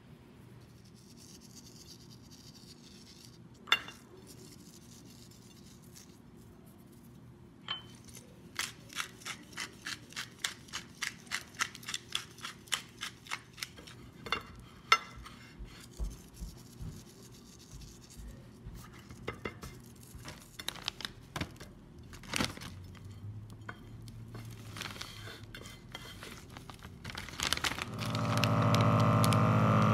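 Pepper mill grinding over raw steak in a quick, even run of crunchy clicks, about two to three a second, with plate and packaging handling around it. Near the end a vacuum sealer's pump motor starts up with a loud steady hum.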